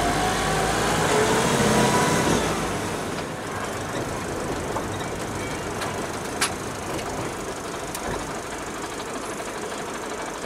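Mercedes-Benz 208 D van's diesel engine pulling and rising in pitch over the first two seconds or so, then running steadily with road noise. A single sharp click comes about six and a half seconds in.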